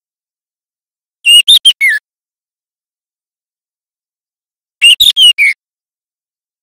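Juvenile white-rumped shama calling: two short bursts of three or four quick whistled notes, each ending on a falling note, about three and a half seconds apart.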